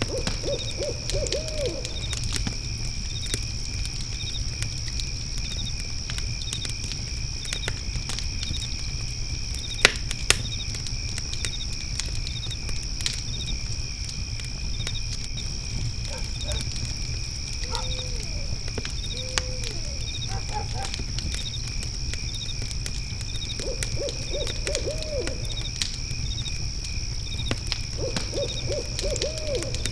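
Crickets trilling steadily with a regular chirp, over a crackling fire pit that gives two sharp pops about ten seconds in. Several times an owl hoots in short quick runs of notes, and a low steady rumble lies underneath.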